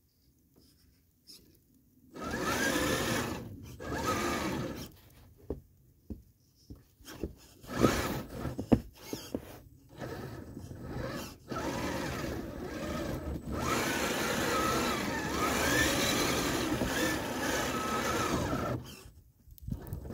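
Redcat Gen8 Scout RC crawler's electric motor and gears whining in throttle bursts under the load of pushing snow with its plow. After about two seconds of near quiet come two short bursts and a few sharp clicks, then a longer run of about nine seconds whose pitch rises and falls, and it stops shortly before the end.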